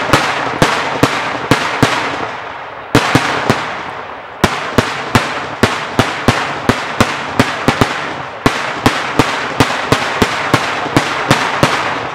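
Daytime fireworks bursting overhead in a rapid series of loud bangs, about three a second, each with an echoing tail. There are short pauses about two and a half, four and eight seconds in.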